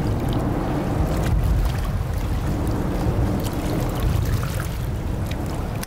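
Steady rumble and rush of a motorboat running on the water.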